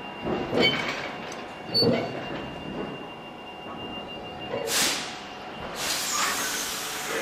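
BLS passenger train standing at a platform, with a faint steady whine from its equipment. Two heavy thumps come in the first two seconds, a short hiss of air comes near five seconds, and a longer hiss starts about a second later.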